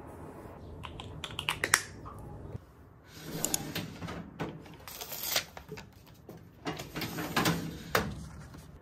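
Clicks and rattles of plastic as a drawer full of plastic organiser trays is opened and its contents handled, then pushed shut with a sharp click near the end. A quick run of sharp clicks comes about a second in.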